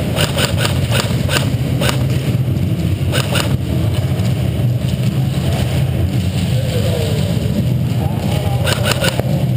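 Airsoft guns firing: rapid strings of sharp clicks at the start and near the end, with a few single clicks around two and three seconds in, over a steady low hum.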